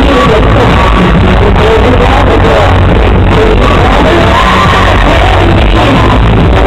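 Live pop concert music heard from the audience: a loud amplified backing track with heavy bass and a woman singing into a handheld microphone. It sounds muffled, with the top end cut off.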